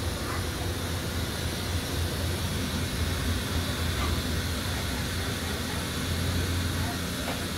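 Steady low drone of aircraft machinery heard inside an airliner boarding jet bridge.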